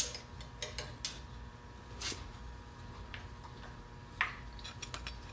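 A few scattered light clicks and taps of things being picked up and handled on a workbench, the sharpest about two seconds in and just past four seconds, over a low steady hum.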